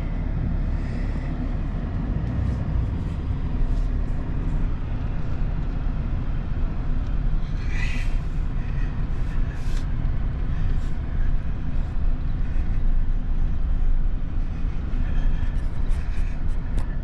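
Vehicle running and driving along, a steady low rumble with scattered light rattles and knocks.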